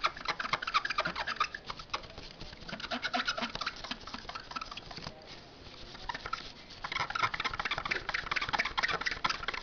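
Rubber eraser rubbed rapidly back and forth over the metal contacts of a DDR2 RAM module to clean them, making a fast dry scratching. The rubbing eases off about five seconds in, then picks up again.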